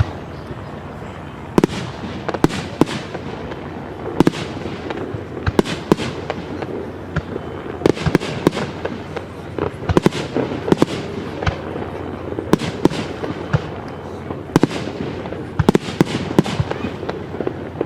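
Fireworks display: shells bursting overhead in an irregular, steady stream of sharp bangs, some single and some in quick clusters.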